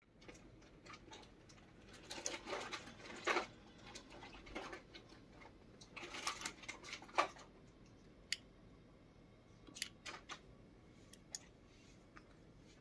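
Plastic lightsaber hilt being handled on a desk: scattered clicks, taps and short rustles as a hand grips and works it, busiest in two spells in the first half, then a few sharp single clicks.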